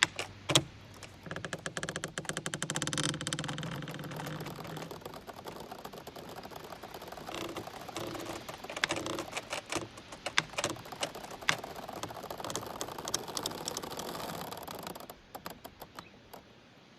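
Giant bamboo stalks creaking as they sway and rub against each other in the wind. A long, fast-ticking creak fills the first few seconds, followed by scattered clicks and shorter creaks and squeaks that die down near the end.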